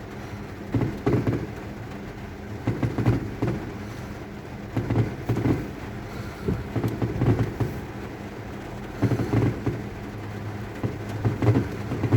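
Fireworks shells bursting in a series of deep booms every second or two, heard muffled inside a closed car, over the steady sound of heavy rain falling on the car.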